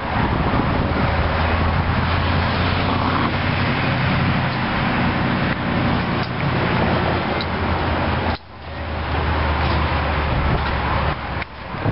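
A car engine idling with a steady low rumble, under heavy wind noise on the microphone. The sound drops out briefly about eight and a half seconds in.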